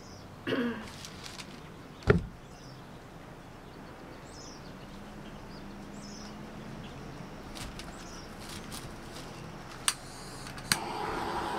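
A sharp click about two seconds in and a few faint high chirps over low background. Near the end, a click and a handheld air blower (hair-dryer type) switching on and running with a steady whir, ready to blow the poured paint across the canvas.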